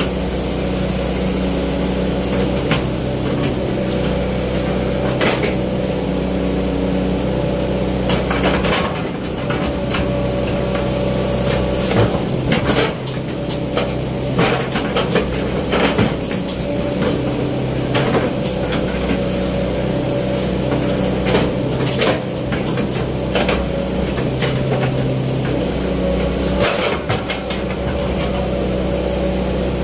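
Sumitomo S265 excavator's diesel engine running steadily, heard from the operator's cab. From about eight seconds in, a string of sharp clanks and knocks sounds over the engine.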